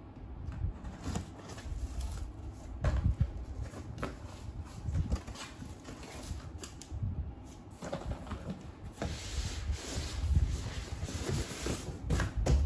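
Cardboard shipping box being opened by hand: packing tape cut with scissors, flaps pulled open, and irregular rustling, scraping and knocking of cardboard, with louder knocks near the end as the box is tipped over on a tiled floor.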